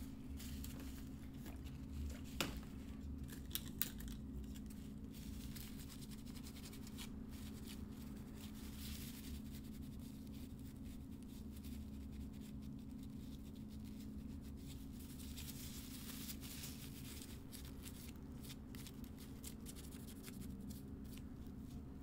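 Paper towel rubbing old thermal paste off a laptop CPU, and a clear plastic clamshell tray being handled: faint rustling and wiping with scattered sharp clicks, over a low steady hum.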